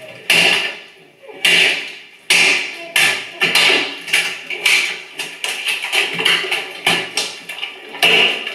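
Thick black guar-gum slime slapping and splashing in a bathtub as it is scooped and flung by hand, a run of wet smacks about two a second. Heard through a TV speaker.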